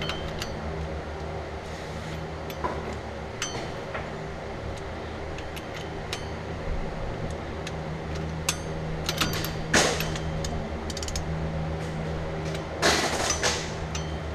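Scattered metallic clicks and clanks of hand tools on the flywheel bolts as they are run down, with a cluster of quick clicks about two-thirds of the way in and a louder clatter near the end, over a steady low hum.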